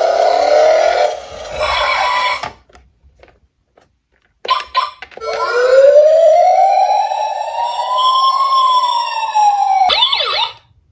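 Electronic siren wail: one slow tone that rises for about three seconds and then falls away, ending in a quick warble. It comes after a busier, noisier stretch with rising tones and a short gap of near silence.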